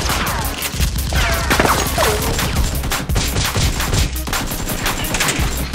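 Rapid automatic gunfire sound effects, many shots a second in a dense run, with a few falling whistling tones between about one and two seconds in. These are gun sounds laid over the Nerf blaster action.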